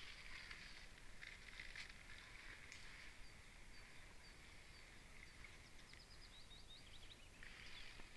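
Faint outdoor ambience: a small bird repeating short high notes, with a quick run of falling notes a little past the middle. Soft rustling of a nylon fish mat or sack being handled comes and goes, mostly in the first few seconds and again near the end.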